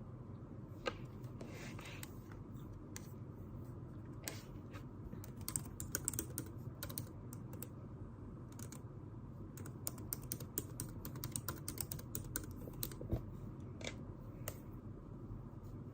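Typing on a computer keyboard: keys clicking in irregular runs, busiest about a third of the way in and again past the middle, over a steady low room hum.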